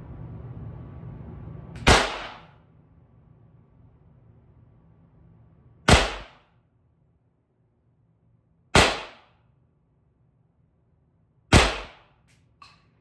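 NxWerks Pistelle X-68 .68 caliber CO2 launcher firing aluminum rounds: four sharp shots, each with a short ringing tail, spaced about three seconds apart. A faint tick follows about a second after the last shot.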